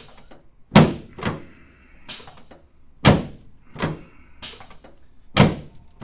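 Chiropractic treatment table thudding under quick hand thrusts on the lower back and SI joints during a spinal adjustment. There are about eight sharp thuds, a heavy one followed by one or two lighter ones, repeated three times.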